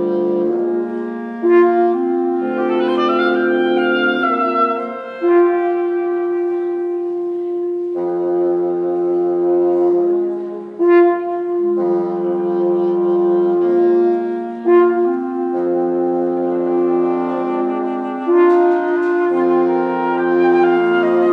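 Woodwind quintet of flute, oboe, clarinet, bassoon and French horn playing slow sustained chords that shift every few seconds over a steady held note. A quick rising run comes about two to four seconds in.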